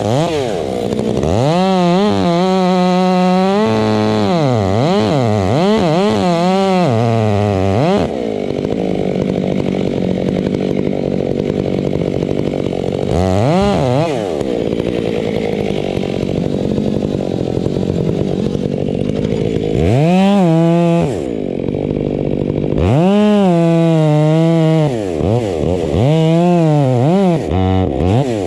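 Chainsaw cutting into the trunk of a maple tree. The engine revs up and down repeatedly near the start and again in the last third, and runs steadily under load through the long cut in the middle.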